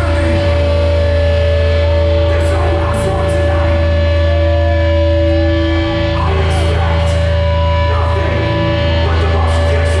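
Live hardcore band playing loud through a PA: distorted guitars hold long sustained notes over a steady heavy bass rumble.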